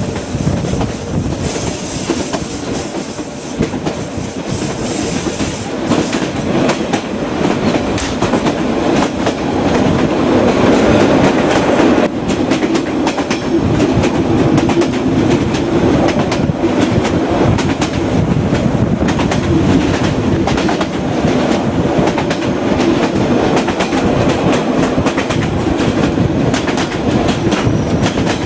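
Reunification Express passenger train running on the move, its wheels clattering over the rail joints with a steady stream of clicks, growing a little louder about a third of the way in.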